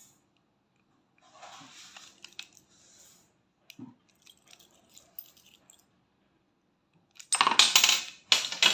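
Full-metal WE 1911 MEU airsoft pistol being taken apart by hand: faint clicks and scraping of metal parts, then a loud metallic clatter lasting about a second and a half near the end.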